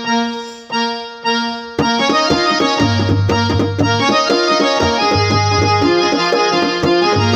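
Electronic keyboard playing: three held chords that die away over the first couple of seconds, then a quick melody over a steady drum beat and a pulsing deep bass.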